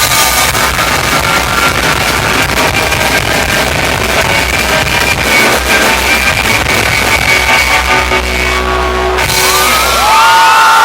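Loud rock music with guitar, with a crowd shouting over it.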